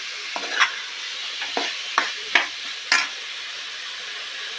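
Chicken pieces sizzling in hot oil in a metal kadai, with a steel spoon scraping and turning them in several short strokes over a steady frying hiss.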